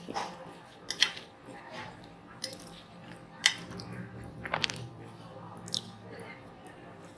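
Close-miked eating: chewing of spicy instant noodles, with several sharp clicks of a fork against the plate as noodles are twirled up, the loudest about one and three and a half seconds in.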